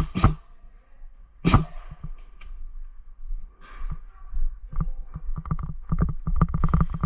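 Airsoft guns firing in an indoor close-quarters game: a sharp single shot near the start and another about a second and a half in, then a faster run of clacks from about five seconds in.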